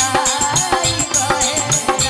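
Live stage music: a woman singing into a microphone over a band with tabla-style hand drums keeping a fast, even rhythm and a high ticking percussion on top.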